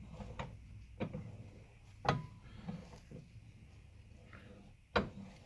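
A few short, sharp clicks and knocks, about five spread over a few seconds, as the lightweight aluminum rear upper camber arm with its freshly seated bushing is handled on the workbench.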